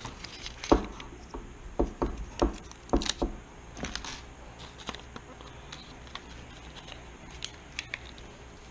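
Workbench handling noise as a clamp is put on a glued carbon-fibre quadcopter arm: a run of sharp clicks and knocks in the first few seconds, then only a few faint ticks.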